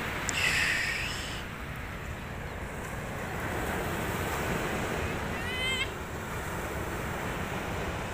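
Steady wash of sea surf with wind on the microphone. A child's high-pitched call sounds about half a second in, and a short run of quick high chirps comes a little past the middle.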